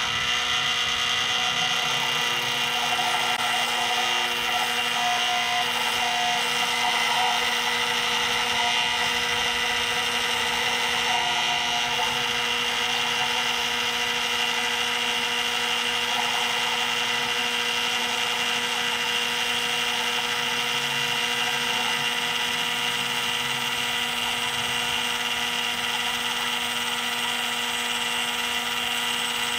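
Benchtop mini lathe running at a steady speed, its motor and gear train giving a constant whine, while it turns a metal part.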